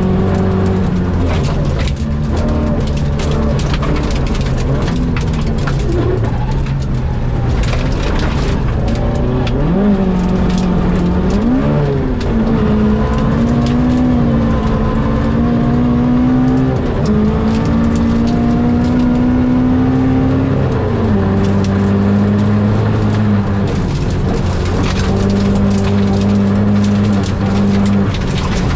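Rally car engine pulling hard under load, its pitch climbing and dropping in steps as it changes gear and comes on and off the throttle, with frequent sharp rattles and knocks from the car over the road.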